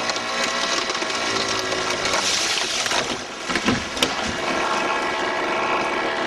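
Two-stroke chainsaw running at high revs while cutting through a tree limb, its pitch shifting as it bites. The engine dips about three seconds in, with a few sharp cracks about half a second later.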